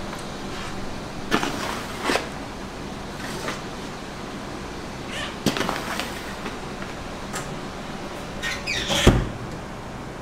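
Metal sheet pans of dough knocked and slid along the rails of a proofing cabinet and a steel pan rack: a few scattered clanks and scrapes, the loudest thump about nine seconds in, over a steady hum.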